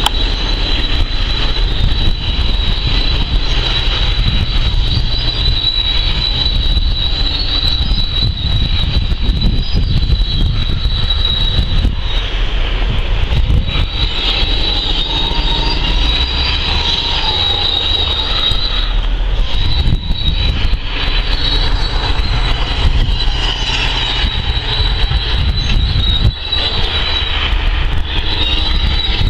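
Heavy machinery running steadily: a loud, constant low rumble with a high-pitched whine over it.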